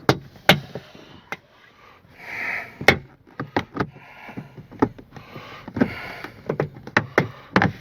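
Irregular sharp plastic clicks and knocks as a car's rear interior trim panel is pulled and worked loose by hand, about a dozen snaps with a short scraping rustle about two and a half seconds in.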